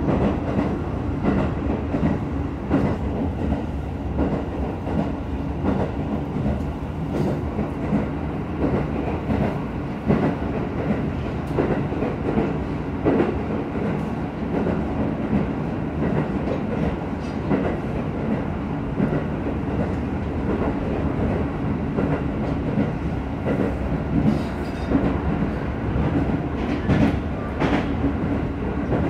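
Nagoya Aonami Line train running at speed, heard from inside the car: a steady rumble of wheels on rail with scattered clicks and knocks.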